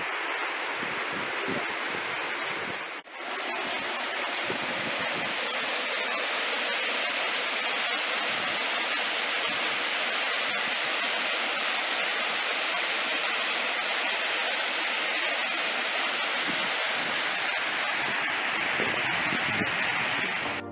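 Steady rush of water falling over a waterfall, a continuous hiss with no rhythm, briefly dropping out about three seconds in.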